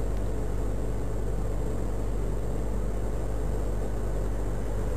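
Steady low hum with hiss, the constant background noise of a security camera's audio recording, unchanging throughout.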